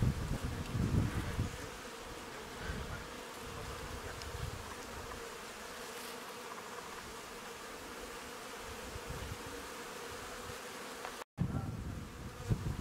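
Honeybees buzzing steadily in flight around a busy hive entrance, the sign of an active colony foraging. Low wind rumble on the microphone comes and goes, and the sound cuts out for a moment about eleven seconds in.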